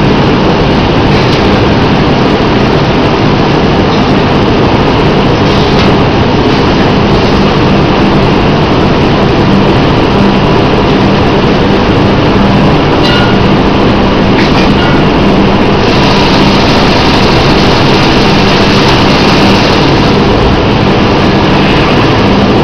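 Loud, steady din of feed mill machinery running, with a constant low hum and a few faint ticks.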